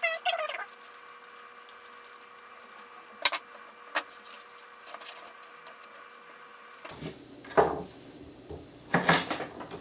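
Carrots being peeled with a vegetable peeler: scattered clicks and scraping strokes, busiest near the end. A brief squeaky whine opens it.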